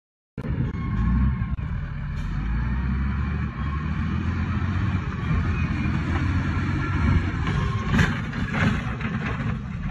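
Wheel loader's heavy diesel engine running hard with a deep, steady rumble. Near the end come two sharp knocks as the machine bounces on its tyres.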